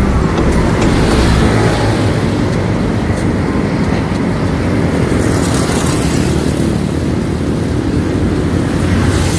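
Steady road traffic noise from motorcycles and cars on the highway, with a falling whine that fades out about a second in.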